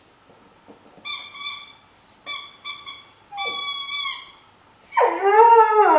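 Five-month-old English setter puppy whining at its toy ball: a run of short, high-pitched whines starting about a second in, then near the end a much louder, lower, drawn-out vocal 'talking' sound that falls in pitch.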